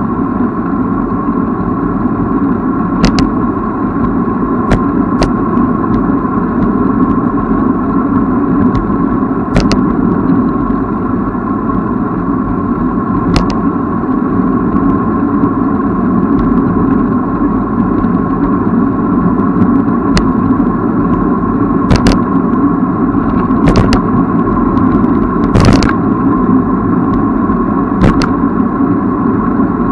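Steady wind and tyre noise of a bicycle in motion, picked up by the riding camera, with about a dozen short, sharp clicks scattered through it.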